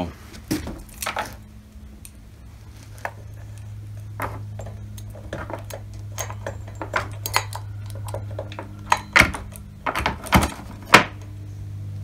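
Loose metal saw chain clinking and rattling against the guide bar and sprocket while it is fitted back onto a chainsaw, in scattered sharp clicks that are loudest near the end. A steady low hum runs underneath.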